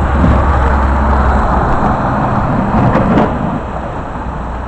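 A car passing on the wet street, a rushing tyre hiss that dies away about three and a half seconds in.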